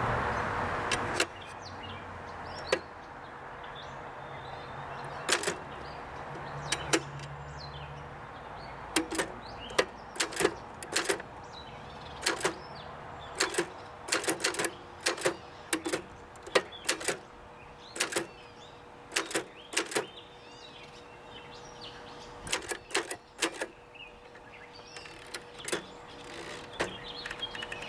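Keys of a 1958 Adler Universal manual typewriter being struck one at a time in irregular runs, each typebar hitting the platen with a sharp click. A brief rushing noise comes at the very start, and a faint steady hum runs underneath.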